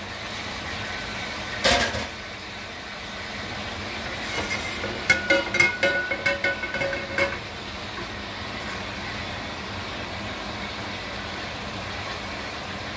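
A stainless steel sauté pan of white wine being shifted on a gas range's cast-iron grate, giving a few seconds of metallic scraping and squeaking around the middle, over a steady rush from the gas burner turned up high. A single sharp click comes about two seconds in.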